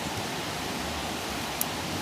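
Wood campfire burning with a steady hiss, and one sharp crackling pop about a second and a half in.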